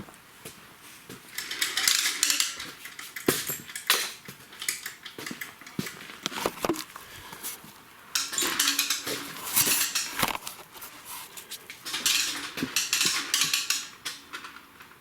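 Metal clinking and clattering from hose fittings and tools being handled, with three stretches of scraping, rustling noise.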